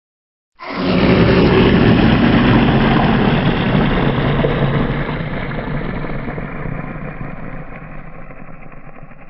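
A long, rough monster growl sound effect that starts about half a second in, loud at first, then slowly fades and grows duller toward the end.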